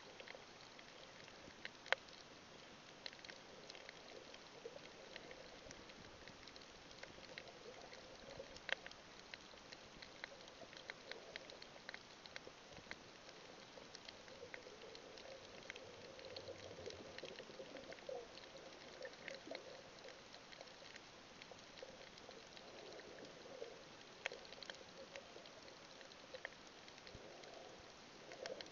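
Faint underwater ambience over a coral reef: a low hiss scattered with irregular sharp clicks and crackles, the loudest click about two seconds in.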